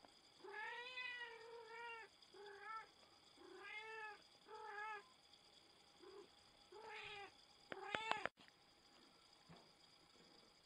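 A cat yowling during mating: a string of about eight drawn-out calls, each rising and falling in pitch, with a sharper, higher call near the end before the sound cuts off suddenly.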